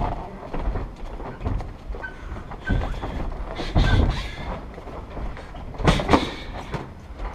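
Sparring strikes landing in a boxing ring: scattered thuds and slaps of gloves and shins, with hits around four seconds in and the loudest pair about six seconds in, over the rumble of feet moving on the ring canvas.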